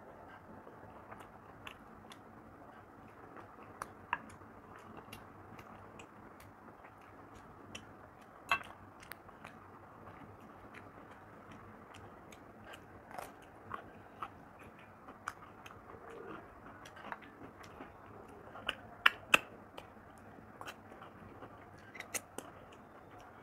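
Close-miked chewing and mouth sounds of rice and curry being eaten by hand, with scattered sharp clicks throughout; two of the loudest come close together about 19 seconds in.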